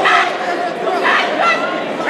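Fight crowd shouting, several voices overlapping, with louder yells near the start and again about a second in.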